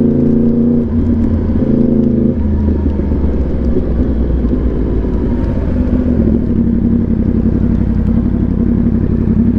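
Yamaha R1 sportbike engine with an SC-Project exhaust running at a steady speed. Its note shifts a few times, about a second in, about two seconds in and again near six seconds.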